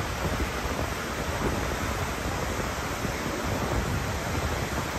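Large river waterfall rushing steadily: a constant, even wash of falling water.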